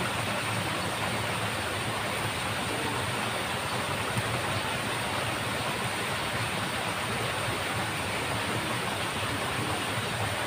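Steady rushing of water flowing through a small drainage ditch, an even unbroken noise.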